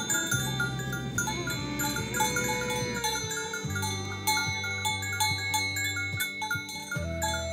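Bells chiming and jingling, with notes stepping in pitch, over long low tones that are held for a couple of seconds at a time.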